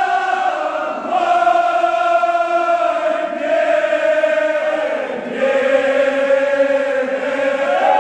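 Kashmiri marsiya sung by a crowd of men in unison: long held notes in phrases, with short breaks between them, and no instruments heard.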